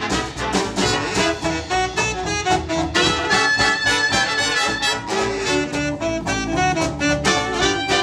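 Dance band playing an instrumental passage of a 1930 tune: trumpets, trombones, saxophones and clarinet over string bass and a steady beat, with a held high note about three seconds in.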